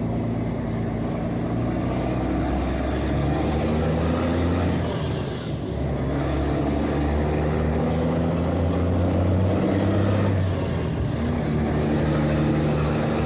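Mercedes-Benz 1634 truck's straight-piped OM 457 six-cylinder diesel pulling the truck along, heard from inside the cab. The engine note dips and changes pitch at gear changes, about five and a half seconds in and again near ten and a half seconds.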